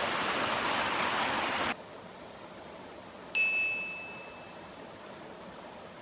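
Waterfall rushing, cut off abruptly about two seconds in; a little over a second later a single bright chime rings out and fades away.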